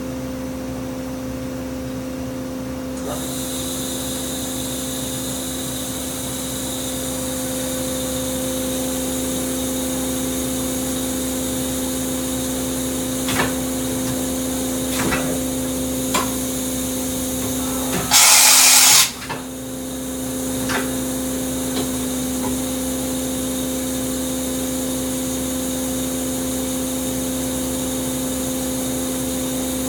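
Kitamura Mycenter 3Xi machining center running: a steady hum, joined by a higher hiss about three seconds in, with a few light clicks and one loud hiss lasting just under a second about eighteen seconds in.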